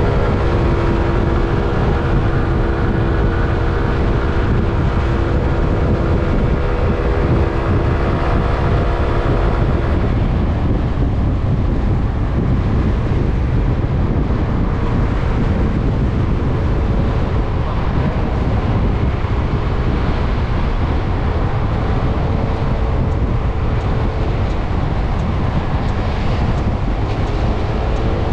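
Wind buffeting the microphone of a moving motor scooter, over the drone of the scooter's single-cylinder engine. For about the first ten seconds the engine is clearly heard under the wind. Then the wind noise at speed covers it, and the engine comes through again near the end.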